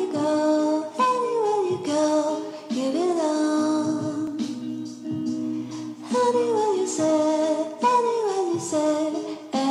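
Background music: a song with a high singing voice in short phrases that fall in pitch, over a steady accompaniment.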